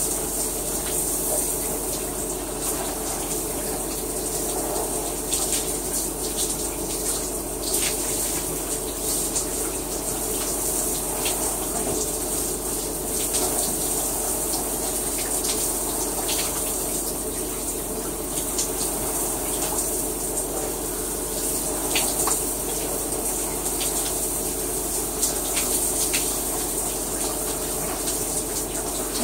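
A shower running: water spraying steadily, with small sharp splashes and spatters scattered throughout.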